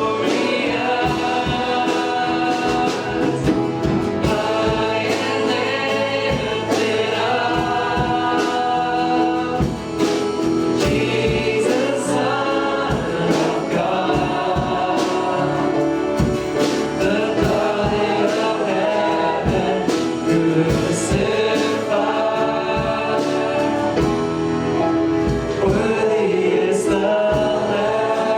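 Congregational worship music: a group of voices singing a Christian worship song over a band with drums.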